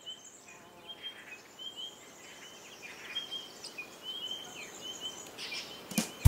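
Woodland birds chirping: many short, repeated chirps from several birds over a faint background hiss. A brief sharp click comes near the end.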